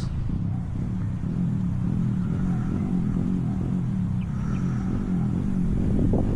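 A steady low mechanical hum with a slightly wavering pitch.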